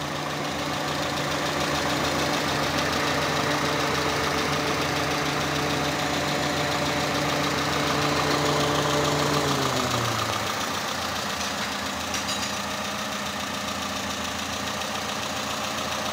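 Peugeot 206 petrol engine idling steadily, freshly fitted and on a test run at normal running temperature, with its electric radiator cooling fan running. About ten seconds in, the fan cuts out and its hum winds down in pitch, leaving the engine idling on its own.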